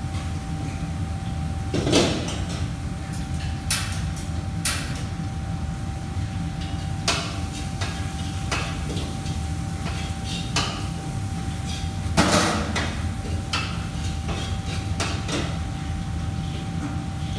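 Commercial kitchen clatter: scattered knocks and clinks of utensils and cookware over a steady low hum and a faint steady whine. The loudest knocks come about two seconds in and again around twelve seconds.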